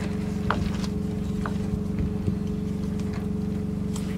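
A steady engine drone, with a few light metallic clicks and clinks from a chain and ratchet strap being handled on a hanging sewer pipe.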